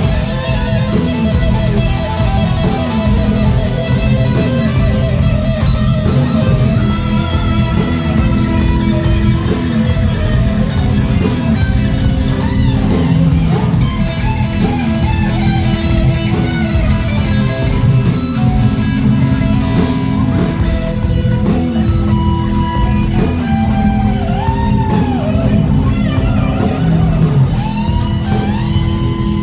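Rock band playing an instrumental passage: electric guitar lead with notes bending up and down over a steady beat.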